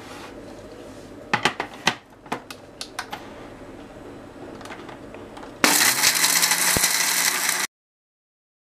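Steel mixer-grinder jar clinking and clicking as it is set onto the base and its lid pressed on. About six seconds in, the mixer-grinder motor starts, its pitch rising as it spins up, and grinds a dry load of whole spices, cashews and onion for about two seconds before it cuts off suddenly.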